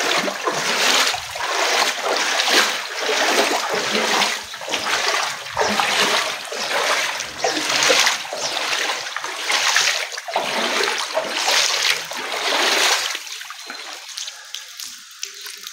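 Footsteps splashing through standing rainwater on a paved lane, one splash per step, a little more than once a second, stopping about 13 seconds in.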